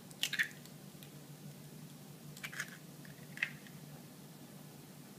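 An eggshell pulled apart by hand over a small ceramic bowl, with a few light cracking clicks near the start. A few more faint clicks and taps follow, about two and a half and three and a half seconds in.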